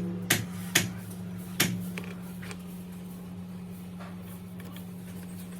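Three or four sharp clicks or taps in the first two seconds, over a steady low hum that carries on after they stop.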